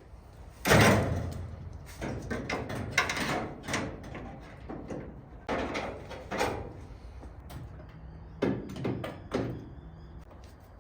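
A series of irregular knocks and clunks, like things being picked up and set down. The loudest comes a little under a second in, with smaller ones every second or so after it.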